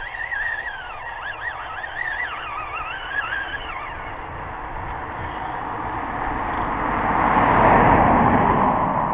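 Spinning-reel drag on a Shimano Technium 4000 buzzing in a wavering whine as a hooked zander pulls line, for about the first four seconds. A rushing noise then swells and is loudest near the end.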